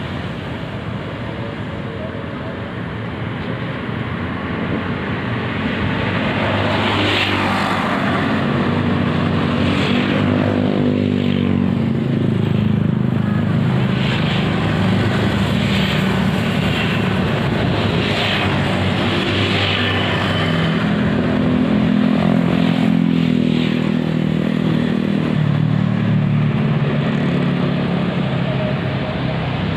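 Motor traffic on the road beside the ditch: a continuous engine drone that swells as vehicles pass, louder about a third of the way in and again around three-quarters through.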